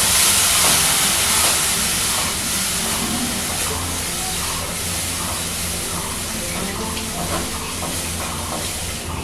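Milk sizzling and steaming on semolina roasted in ghee in a hot non-stick pan, stirred and scraped with a silicone spatula. The hiss is loudest at the start and slowly dies down as the milk cooks off and the mixture dries to a crumbly filling.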